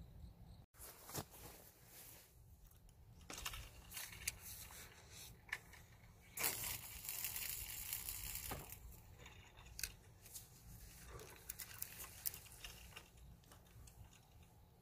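Faint rustling and scattered clicks, with a louder stretch of rustling from about six and a half to eight and a half seconds in.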